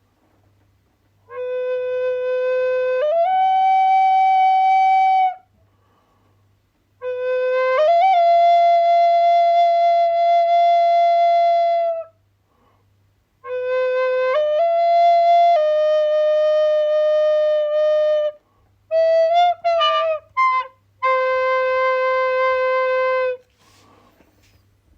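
A solo flute-like wind instrument playing a slow melody of long held notes in four phrases separated by short pauses. Each phrase steps up or down a note, with a quick run of short notes a little before the last phrase.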